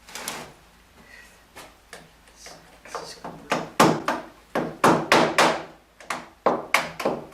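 A series of sharp knocks and bangs as a window frame is worked loose from the broken glass after its fasteners have been drilled out. A few light taps at first, then a rapid run of loud strikes from about three and a half seconds in.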